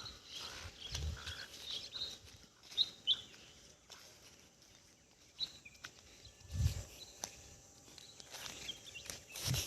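Small birds chirping in short, scattered calls over a quiet rural background, with a few low thumps, the loudest about two-thirds of the way through.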